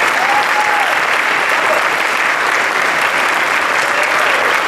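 Audience applauding steadily after a choir's song has ended.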